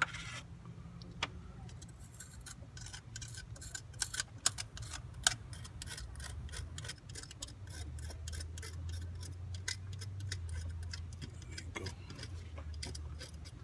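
Blade scraping old gasket residue off the metal mating surface for an engine's thermostat housing: a run of short, irregular scratchy clicks, several a second, over a low hum.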